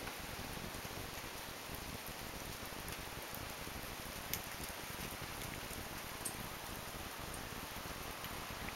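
Steady hiss of a hailstorm pelting the ground, with a few sharp ticks of single stones striking, the clearest about four seconds in and again about six seconds in.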